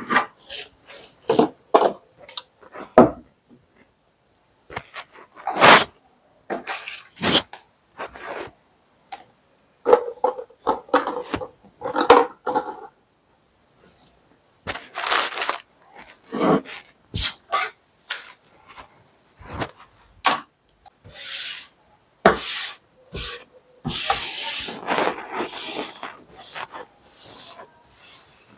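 Cups, bottles and jars picked up and set down on a wooden table: scattered knocks and light clinks, with packaging rustling. Near the end, a tissue rubs across the tabletop in a denser stretch of wiping.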